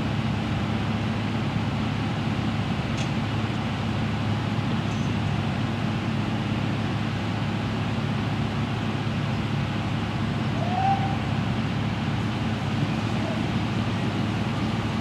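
Steady low rumble of city background noise, traffic and a mechanical hum, with one short chirp about ten seconds in.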